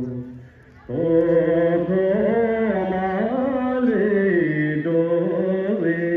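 Slow chanted singing accompanying a Tibetan lingdro dance: long held notes that slide up and down in pitch, broken by a brief pause about half a second in.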